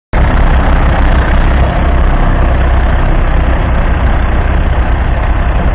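1961 Massey Ferguson 65's 3.3-litre four-cylinder diesel engine running loud and steady as the tractor pulls a three-furrow reversible plough. The sound cuts in abruptly just after the start.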